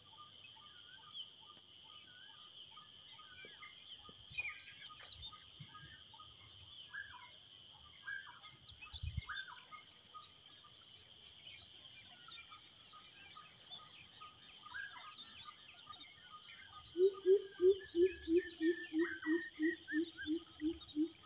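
Rural outdoor ambience: a steady high drone of insects, with scattered bird chirps and whistles. About four-fifths of the way in, a low animal call starts repeating about three times a second and becomes the loudest sound.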